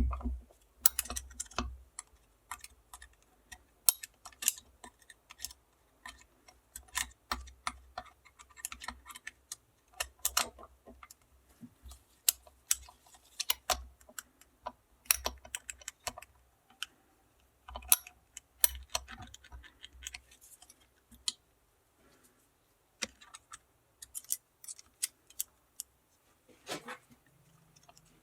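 Irregular sharp clicks and taps of small metal parts and hand tools being handled while a 1.9 TDI diesel injection pump is worked on.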